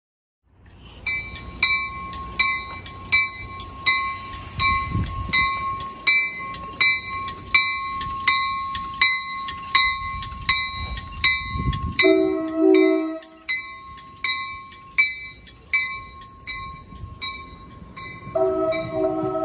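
NJ Transit Comet V cab car's warning bell ringing very loud and steady, a bit over one strike a second, as the train pulls out. A train horn sounds briefly about twelve seconds in and again, held, near the end.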